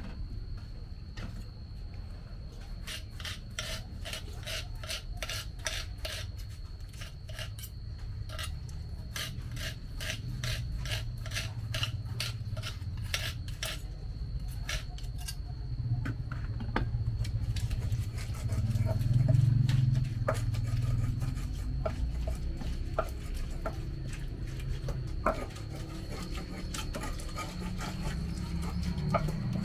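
Stone pestle grinding and rubbing against a wide stone mortar (cobek and ulekan) as tomatoes are crushed into a thick sauce. A run of quick, evenly spaced scraping strokes, about three a second, fills the first half. A lower grinding rub with scattered clicks follows and is loudest about two-thirds of the way through.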